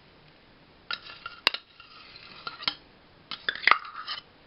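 A metal utensil knocking and scraping against a hot non-stick kadhai as a lump of ghee is added and pushed around. There are several sharp clinks, some with a short ring: one about a second in, a louder one just after, and a cluster near the end.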